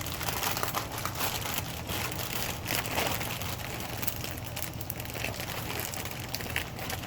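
Dry-rotted, vinyl-coated accordion dryer vent hose being handled, its plastic skin crinkling and crackling with many small clicks.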